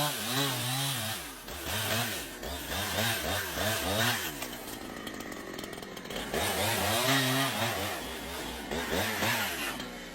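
Gasoline chainsaw running, its engine pitch rising and falling again and again as the throttle is worked, with a steadier stretch near the middle.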